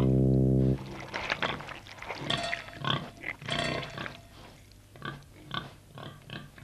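A held musical note cuts off under a second in; then a young pig grunts and snuffles in short, irregular bursts.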